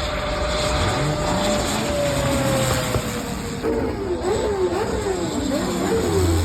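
Airplane engine noise, with a steady tone that slowly falls in pitch over the first three seconds. From about halfway a wavering pitched sound, rising and falling several times, sits over it.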